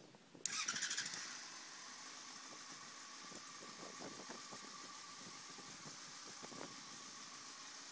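A Yamaha FZ6N's 600 cc inline-four engine starts with a short loud burst about half a second in, then settles into a steady idle.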